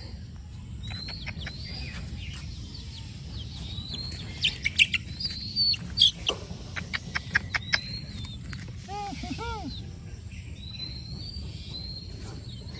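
Small birds chirping in repeated short, high calls that rise and fall in pitch, with a run of loud sharp clicks in the middle and a steady low rumble beneath.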